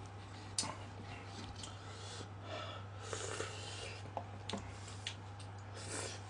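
Eating sounds from a cup of instant ramen: noodles slurped and chopsticks clicking against the cup, in a few short bursts with quiet between them, the loudest just before the end.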